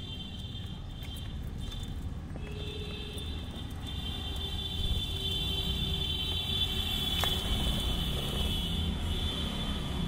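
Steady low background rumble, rising a little about halfway through, with a constant high-pitched hum above it and a single sharp click about seven seconds in.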